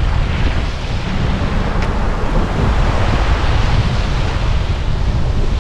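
Wind buffeting the microphone: a heavy low rumble with a steady rushing hiss over it that swells in the middle.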